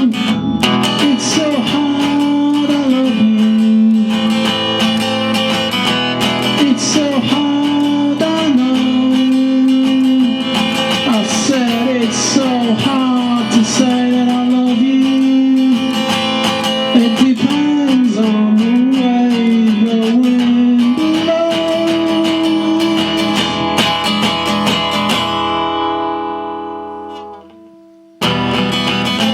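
Solo acoustic guitar playing the bluesy instrumental close of a song, fading out about 27 seconds in. After a brief gap, the guitar starts the next song near the end.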